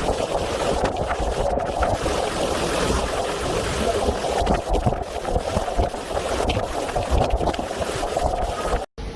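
Hurricane-force wind rushing steadily, gusts buffeting the microphone with a heavy low rumble. It cuts off abruptly just before the end.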